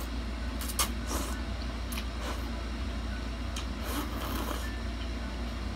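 A person slurping spicy instant ramen noodles off chopsticks: several short wet slurps and mouth smacks, the longest about four seconds in, over a steady low hum.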